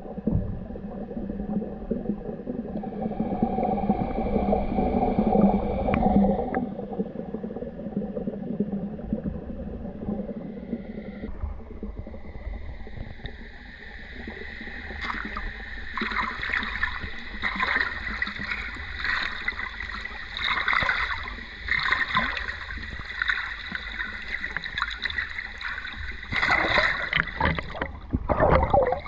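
Water gurgling and splashing, muffled and low for the first ten seconds or so, then brighter, with repeated short splashes through the rest.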